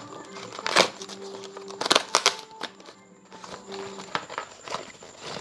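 Cardboard and paper packaging of a parcel being torn open and crumpled by hand: sharp ripping and crinkling noises, once about a second in and a quick cluster about two seconds in, with quieter handling between.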